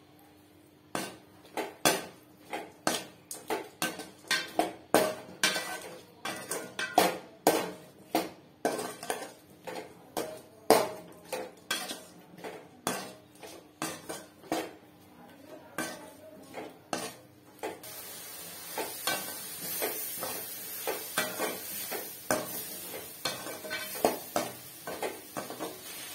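A spatula scrapes and knocks against a stainless steel pan while stirring thick spiced cauliflower curry, in quick irregular strokes about two a second. About two-thirds of the way through, a steady hiss comes in under the stirring.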